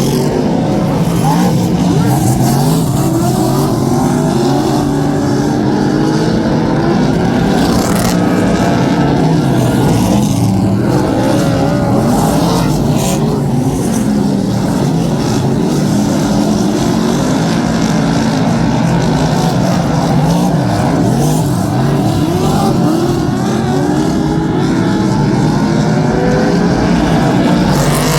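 Several Superstock race cars' V8 engines racing around a speedway oval, overlapping, rising and falling in pitch as drivers get on and off the throttle through the turns. A few sharp knocks cut through the engine noise.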